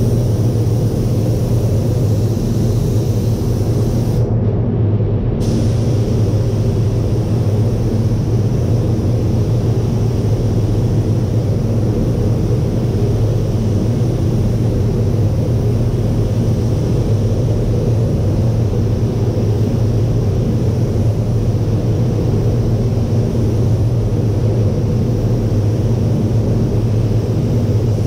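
Automotive paint booth's ventilation fans running, a steady low rumble of moving air.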